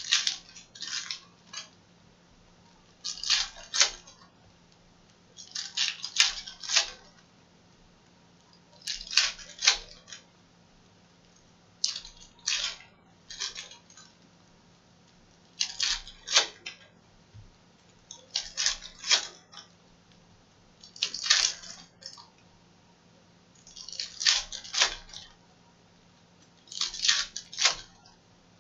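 Foil wrappers of Panini Prizm retail trading-card packs crinkling and tearing as packs are ripped open one after another, a short crackly rustle of about a second about every three seconds.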